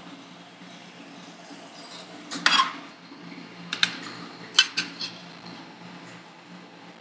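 Metal spatulas striking and scraping on the steel plate of a rolled-ice-cream cold pan. A short cluster of clinks comes about two and a half seconds in, then four sharp, ringing taps between about four and five seconds, over a faint steady low hum.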